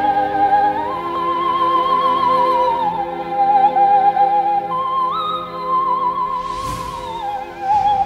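Commercial soundtrack music: a high female voice singing long held notes with vibrato in an operatic style, over sustained backing chords. A rushing whoosh swells and fades about six and a half seconds in.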